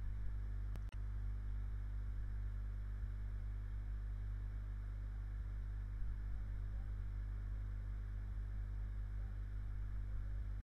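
Steady low electrical hum with faint hiss, picked up by the microphone between words, with one short click and dropout just under a second in.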